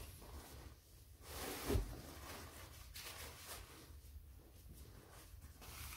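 Tent fabric rustling in irregular swishes as it is handled and folded, with a soft thump about two seconds in.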